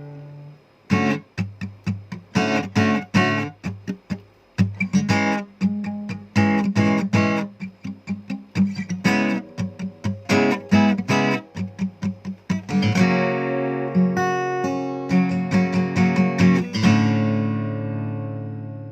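Takamine ED05SC-NS acoustic guitar being played: a run of short, sharply struck chords, then held strummed chords from about 13 seconds in, ending on a final chord that rings out and fades.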